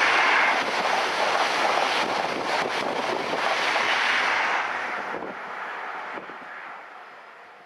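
Class 91-hauled InterCity 225 electric express passing close at speed: a steady rush of wheels on rail and air that fades away after its last vehicle clears, about five seconds in. Wind buffets the microphone.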